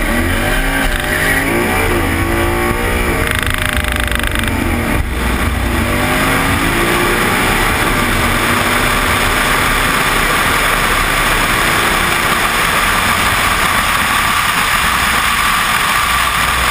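2012 Ford Mustang's 5.0 Coyote V8 at full throttle on a drag-strip run, its pitch climbing through the gears with breaks at the shifts about three and five seconds in. After that, wind rush over the microphone on the car's flank drowns most of the engine.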